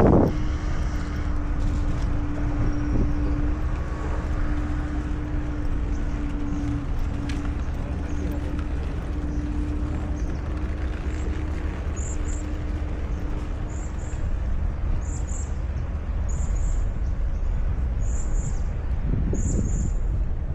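A steady low rumble with a steady hum over it that stops about two-thirds of the way through, and a thump at the very start. In the second half a bird gives short high chirps, about one a second.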